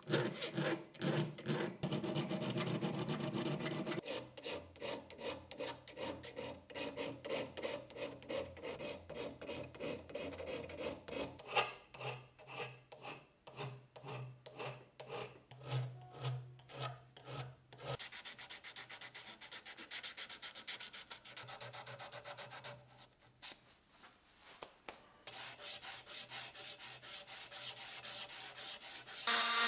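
Hand files rasping on the steel of a socket wrench in repeated back-and-forth strokes, smoothing the square drive opening and the socket's pitted surfaces. Near the end a narrow abrasive belt runs against the socket head, a steadier and denser rasping.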